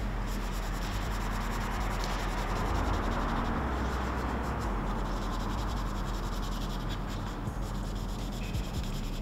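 Felt-tip marker nib rubbing continuously across paper as an area is coloured in with purple, a steady scratchy rubbing.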